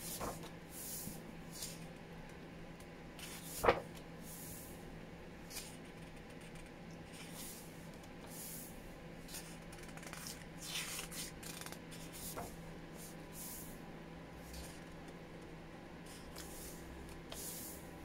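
Pages of a softcover book turned by hand: a series of soft papery swishes and rustles, with one sharp tap a little under four seconds in.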